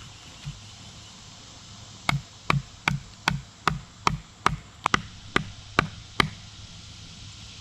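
A blade chopping into a dead, storm-fallen maple branch: about eleven sharp, evenly paced strikes, roughly two and a half a second, beginning about two seconds in and stopping a little past six seconds.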